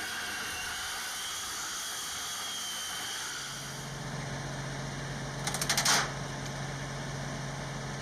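Mechanical noise: a steady hiss, joined about three seconds in by a steady low hum, with a short burst of rapid rattling clicks a little after halfway.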